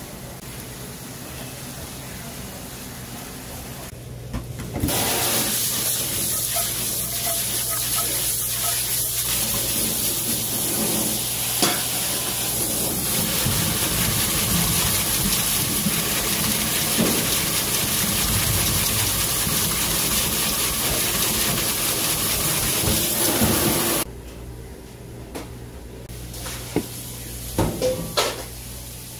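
A pan of water boiling with instant noodles in it, then tap water rushing from a pull-down faucet onto the cooked noodles in a perforated steel strainer as they are rinsed by hand. The rush of water is steady and is the loudest sound, then cuts off suddenly. Near the end there are a few light knocks.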